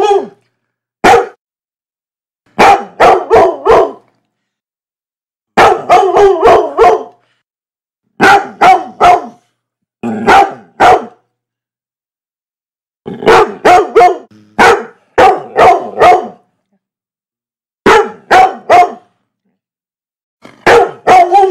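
A dog barking in quick bursts of three to five barks, with pauses of one to two seconds between bursts, repeated throughout.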